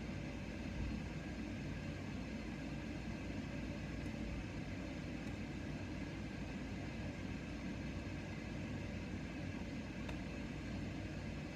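Steady low hum and hiss of background machine noise, like a small fan running, with a few faint ticks.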